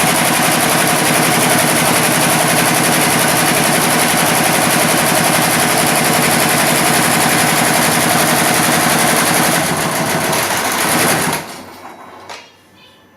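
Computerised embroidery machine stitching at speed: a steady, fast, even rattle that stops suddenly about eleven seconds in, then winds down with a last click.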